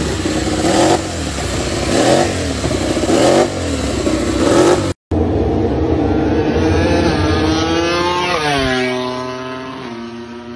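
MotoGP motorcycle engine revved up and down about once a second. After a cut, a MotoGP bike runs flat out along the straight; its pitch drops sharply as it passes, and it fades into the distance.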